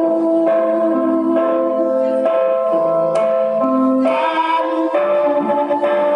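Music: a song with a melody of held notes, sung by children into microphones.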